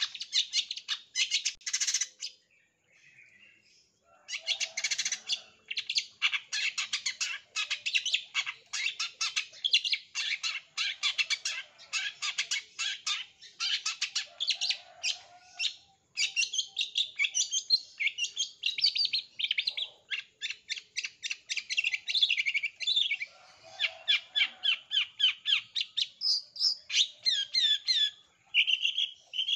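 Long-tailed shrike (cendet) singing: a fast stream of short, high notes, broken by a pause about two seconds in, with more drawn-out, rising and falling whistled notes in the later part.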